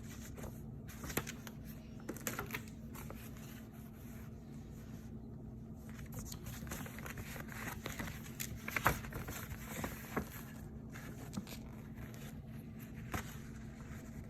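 Packaging being handled: crinkling and rustling of wrapping with scrapes and scattered sharp clicks and knocks, loudest a little under halfway through and near two-thirds in. A steady low hum runs beneath.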